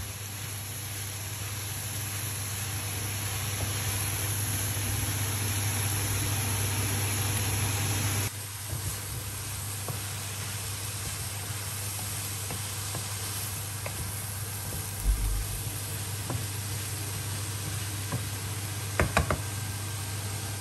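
Brussels sprouts, kale and other vegetables sizzling and steaming in a non-stick frying pan over a steady low hum; the sizzle drops abruptly about eight seconds in. A wooden spatula stirs and knocks against the pan a few times in the second half.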